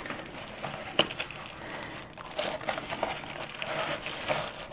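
Cardboard product box being handled and opened, with the card and the paper insert inside rubbing and crinkling. A sharp tap comes about a second in, then a run of small crackles.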